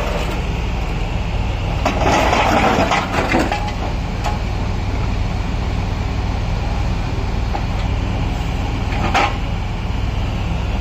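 Kobelco SK140 excavator's diesel engine running steadily under hydraulic work as its grab attachment handles broken concrete rubble. A burst of scraping and crunching comes around two to three seconds in, and there is a single sharp clank near the end.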